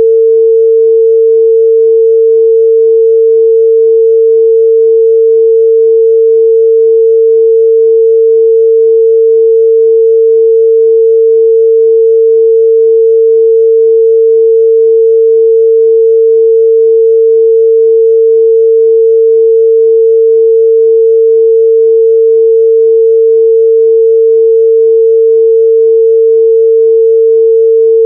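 Pure 451 Hz sine-wave test tone, one steady loud pitch held without change.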